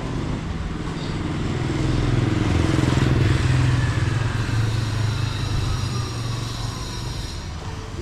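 Motor scooter approaching and passing close by: its engine grows louder to a peak about three seconds in, then fades as its pitch drops.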